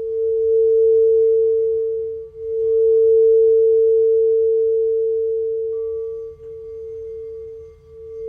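Crystal singing bowl sustaining one steady, pure tone that swells and ebbs in loudness, with a faint higher overtone.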